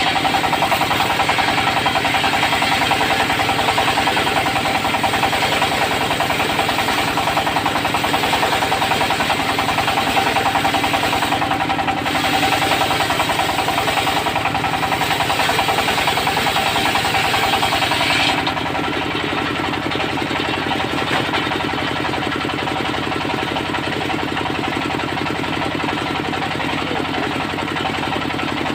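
Diesel engine of a portable circular sawmill running steadily while the disc blade cuts through teak, a harsh hissing cut over the engine's fast knock. About two-thirds of the way through the cutting noise stops and the engine and blade keep running alone, a little quieter.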